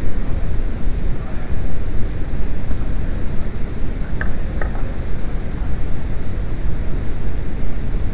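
Steady loud low rumble of wind on the microphone, with two small clicks about four seconds in as the plastic back cover of the headlight assembly is worked off.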